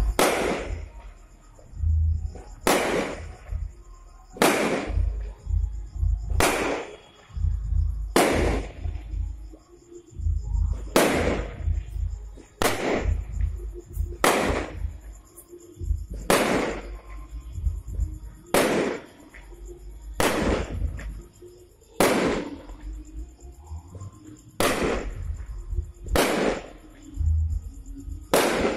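Aerial fireworks shells bursting one after another, about one every two seconds, each a sharp bang that rings out briefly, with a low rumble underneath.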